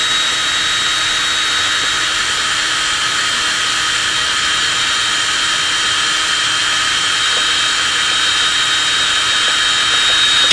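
Electric drill with an 11/64-inch bit running at a steady high speed while drilling out the marked hole points, a constant high whine.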